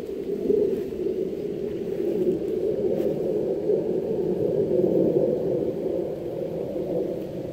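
Steady low rushing noise that swells and eases a little in level.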